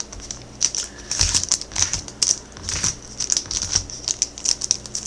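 Plastic wrapping and trading-card packs crinkling as they are handled, in quick, irregular crackles.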